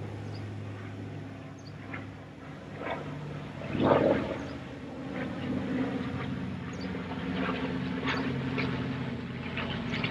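Piston engines of a B-25J Mitchell bomber and three P-51 Mustangs flying over in formation, several engine tones droning and shifting in pitch as the aircraft pass. A louder rush of noise comes about four seconds in.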